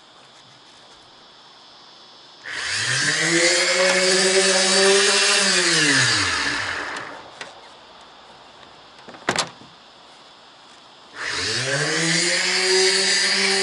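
Electric hand-held sander sanding back the bus roof: it spins up with a rising whine, runs with a hiss of abrasive on the paint for about four seconds, then winds down. A sharp click follows a couple of seconds later, and near the end the sander starts up again and runs on.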